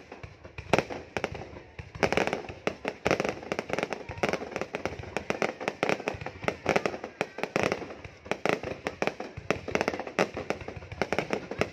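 Fireworks going off in a dense barrage: rapid sharp bangs and crackles, with heavier clusters of bursts every second or two.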